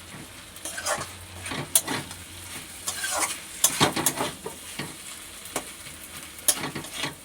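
A spatula stirring and scraping soft cooked vegetables in a pan, with irregular scrapes and light knocks over a low sizzle.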